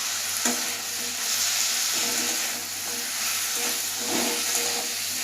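Pineapple pieces sizzling in hot mustard oil in a kadai as they are stirred with the turmeric, chilli powder and salt. A steady frying hiss, with a sharp click about half a second in.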